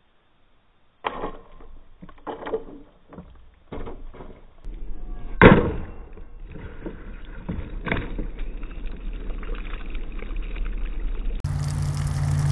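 Thrown knives knocking into wood and a plastic bottle: several sharp knocks, then one loud hit about five seconds in. A steady rushing noise follows and slowly grows louder, and near the end it gives way to a louder, deeper hum.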